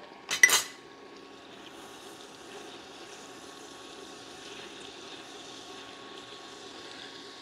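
Induction cooktop's cooling fan running steadily, with a faint hum and a soft sizzle from butter and pepper jelly melting in a stainless saucepan as it is stirred. A short, sharp clink comes just after the start.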